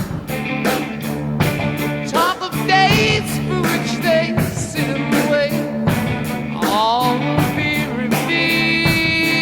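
Rock music with a steady beat, guitar and singing.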